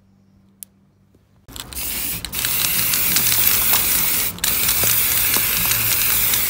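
Aerosol spray-paint can spraying in long, steady hisses, starting about a second and a half in, with two brief pauses where the nozzle is let go. Before the spraying there is near silence and a single click.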